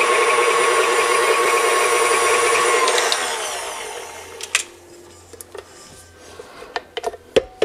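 KitchenAid Ultra Power stand mixer running steadily with its wire whip, beating thick cream cheese frosting. About three seconds in it is switched off and the motor winds down with a falling whine. A few light clicks and knocks follow as the mixer is handled.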